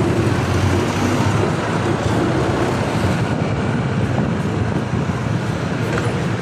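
Steady city street traffic noise: vehicle engines running with a low, continuous road rumble.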